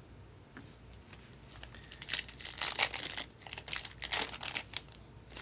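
Foil wrapper of a trading-card pack being torn open and crinkled, a run of crackling starting about two seconds in.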